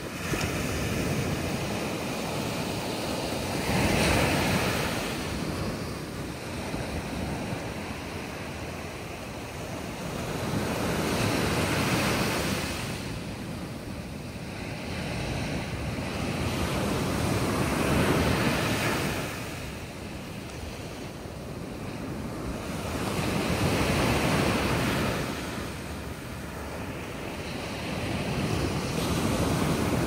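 Sea waves breaking on the shore: a steady wash of surf noise that swells and ebbs, with a wave surging up about every six to eight seconds.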